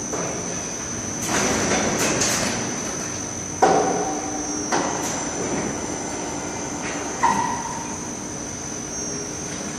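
Steady industrial machinery noise with a constant high whine. Two sharp metallic clanks ring on briefly, about a third of the way in and again about three quarters through.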